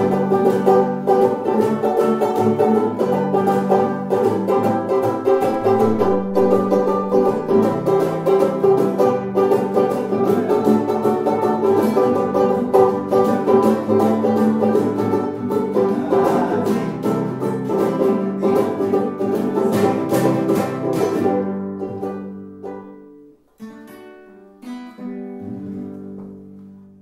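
Music of quickly picked plucked strings, dense and busy. About 21 seconds in it fades, leaving a few scattered notes that die away at the end.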